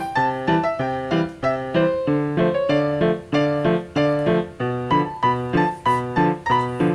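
Background music: a light piano-like keyboard tune of short, evenly spaced notes, about two to three a second.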